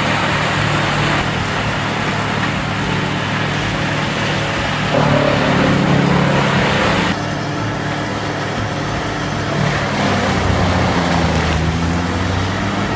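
Morbark 4036 whole-tree chipper running under load, its diesel engine droning steadily while a grapple loader feeds tree tops into it and the branches are chewed up. The noise swells for a couple of seconds about five seconds in as a big bundle goes through.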